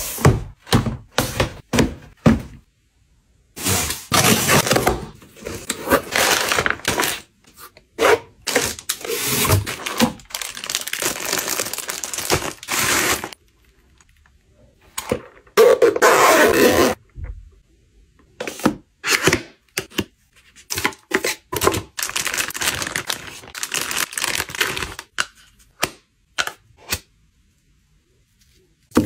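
Packages being unboxed and handled: a cardboard box set down with a thunk, several runs of packaging rustling and tearing, and many sharp taps and clicks from plastic cases and products being handled.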